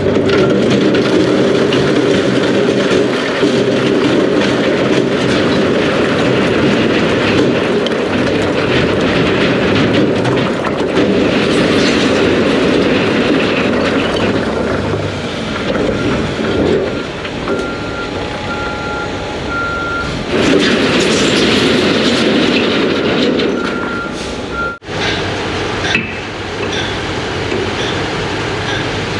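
Dump truck tipping its bed and a load of large rip-rap rock sliding and crashing out onto the ground, over the truck's running diesel engine. The truck's backup alarm beeps at times.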